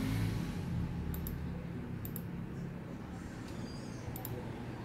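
Computer mouse clicking faintly, a few times, each click a quick press-and-release pair, as characters are picked on an on-screen keyboard. Under it runs a low steady hum that slowly fades.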